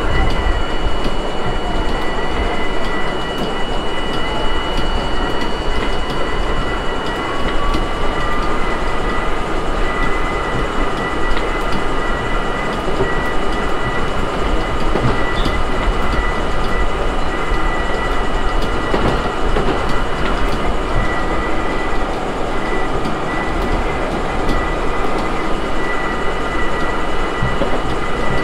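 R32 subway car running along the track, heard from inside at the front of the car: a steady loud rumble of wheels on rail with several steady high whining tones. A few seconds in, one tone rises in pitch and then holds.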